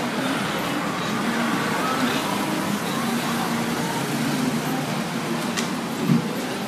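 Steady city traffic noise with distant voices, heard from a stairway going down into a pedestrian underpass. There is a single sharp click about five and a half seconds in.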